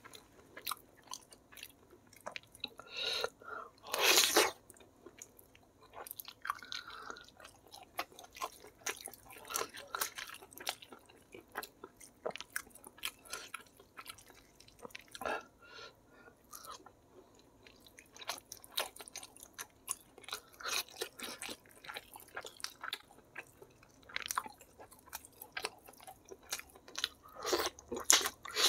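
Close-up eating sounds of a man chewing and biting chicken in spicy sauce: many small wet clicks and smacks throughout, with a couple of louder noises about four seconds in and near the end.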